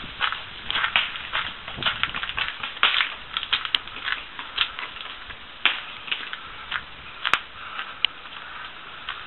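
Footsteps crunching on a thin crust of icy snow, an uneven run of short crunches and crackles.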